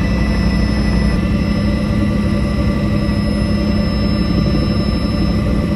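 Helicopter engine and rotor noise heard from inside the cabin in flight: a loud, steady drone with a thin, steady whine over it.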